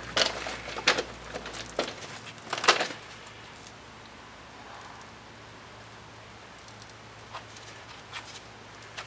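A few sharp clicks and scraping knocks in the first three seconds, then quieter, scattered faint ticks and scrapes of a putty knife spreading thickened epoxy onto a wooden scarf joint.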